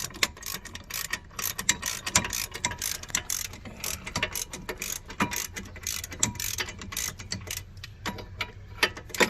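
Hand ratchet wrench clicking rapidly as bolts are run in, with a quick, continuous train of sharp ratchet clicks.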